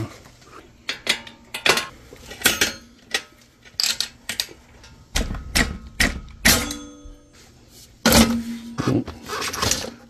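Irregular metallic clinks and knocks of a wrench working the rear axle nut of an e-bike hub motor, with the wheel and frame being handled. A longer rattle and rustle near the end.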